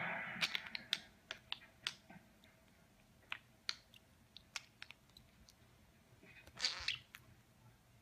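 Scattered faint, sharp clicks and ticks, with a short scratchy rustle about seven seconds in. A louder noisy rush fades out in the first second.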